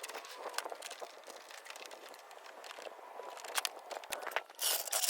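Irregular clicks and crinkling handling noise, louder near the end.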